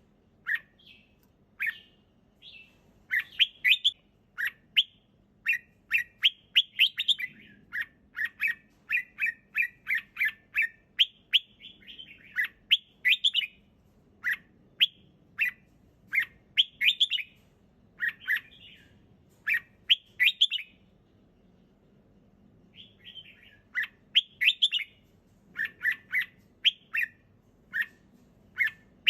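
Red-whiskered bulbul singing: short, clear, chirpy phrases one after another, with a pause of about two seconds about three-quarters of the way through.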